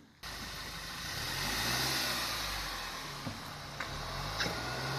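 Car engine running with its pitch rising and falling a little, under a broad rushing noise, with a few light clicks in the second half.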